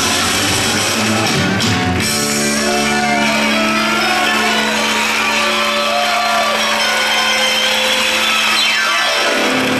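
Loud dance-show music, settling on a held low note about two seconds in, with a falling pitch sweep near the end.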